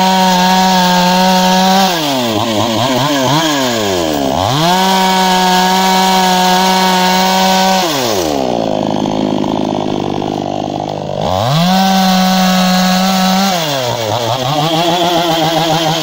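Two-stroke petrol chainsaw cutting thin felled logs, held at full throttle three times, with the engine dropping back toward idle between cuts and its pitch wavering as it slows. The longest drop comes about halfway through.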